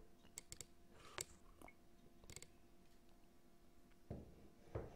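Near silence with a few faint, scattered clicks and two soft low noises near the end.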